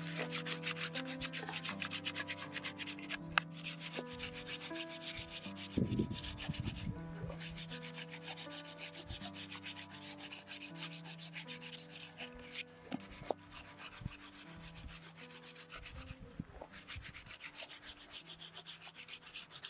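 Hand sanding of a carved wooden spoon: quick back-and-forth rubbing strokes of abrasive over the bowl and handle, growing fainter toward the end, with a couple of light knocks. Soft background music with long held notes runs underneath.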